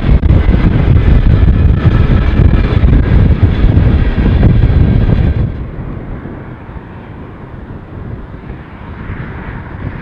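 Loaded freight train's boxcars rolling past at speed, a loud, heavy rumble of wheels on rail that cuts off suddenly about halfway through. A much quieter steady rush of wind on the microphone follows.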